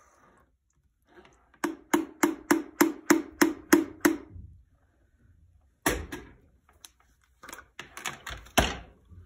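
A wooden spoon knocking against an immersion blender's blending wand, about four knocks a second for a couple of seconds, each with a short hollow ring, knocking off tomato sauce. Then a few scattered knocks and clatters of kitchenware, the loudest near the end.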